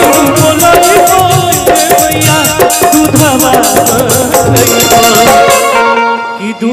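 A man singing into a microphone over live backing music: held instrument notes, a steady drum beat and rapid rattling percussion. The percussion stops about six seconds in, leaving the voice and the held notes.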